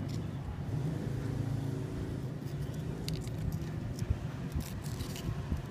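A steady low mechanical hum, like a running engine, under a few faint clicks and rustles of fingers working nylon monofilament fishing line in the second half.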